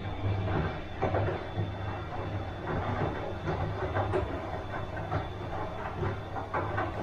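Bosch washing machine running mid-cycle: a steady low hum with irregular swishes from the turning drum and its load.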